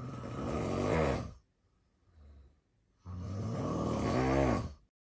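A man snoring: two long, rasping snores about three seconds apart, each growing louder before it stops, with a faint breath between them. The sound cuts out abruptly near the end.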